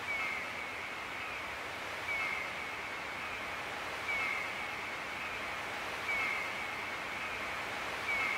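A short, high, slightly falling chirp repeating five times, evenly about every two seconds, over a steady hiss.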